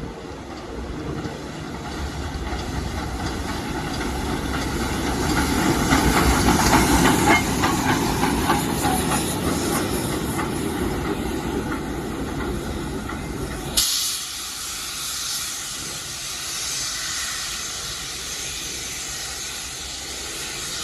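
Class L steam locomotive running light past at close range: steam hissing over the rumble of the engine and its wheels, loudest about six to eight seconds in. Around fourteen seconds in the rumble drops away suddenly, leaving mostly a high steam hiss.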